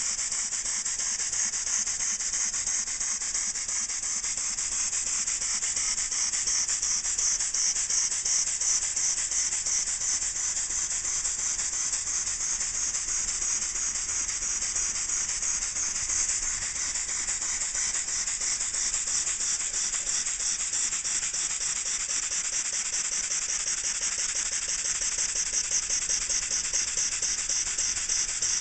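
Small single-cylinder model mine engine (an Elmer's engines design) running on compressed air, its exhaust giving a fast, even chuff of hissing air pulses. It runs steadily throughout.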